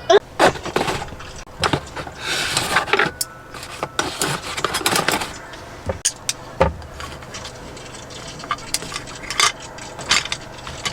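Clatter of dishes and utensils being handled: a run of sharp clinks and knocks with a few stretches of scraping.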